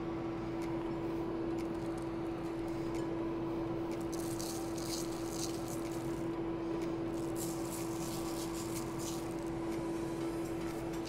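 Steady hum of an induction cooktop heating a pot of poaching water. Two spells of dry rattling, about four and seven seconds in, as seeds are handled over the bagels.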